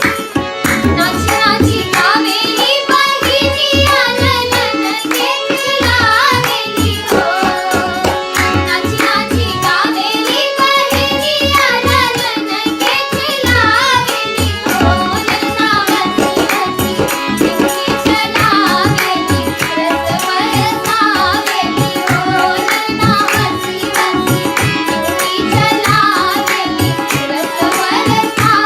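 Children singing a Hindu devotional song to Shiva, accompanied by tabla.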